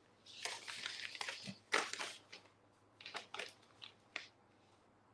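Faint rustling, then a few light clicks and taps spread over the next few seconds.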